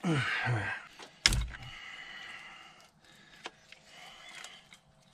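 Engine wiring-harness connectors being unplugged and handled under the hood: a short falling squeak at the start, a sharp knock about a second in, then light clicks and rustling.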